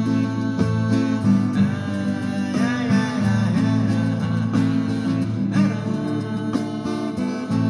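Live music: a man singing over held instrumental notes.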